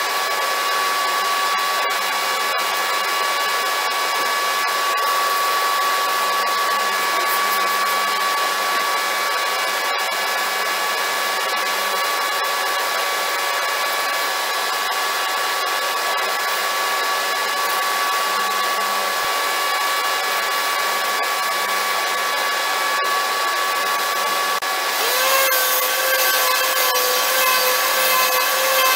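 A small electric motor, like a power tool or blower, running steadily with a constant whine. About 25 s in, a second tone glides up in pitch and a harsher scraping hiss joins, as if the tool starts biting into material.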